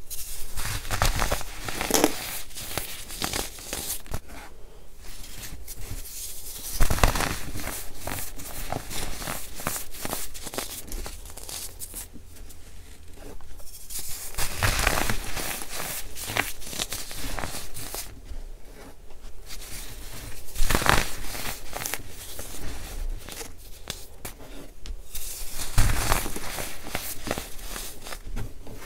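Compressed, soap-bar-shaped baking soda cases being crumbled by hand into loose baking soda powder: irregular soft crunching and crackling with a sifting hiss as powder pours through the fingers, and several louder crunches.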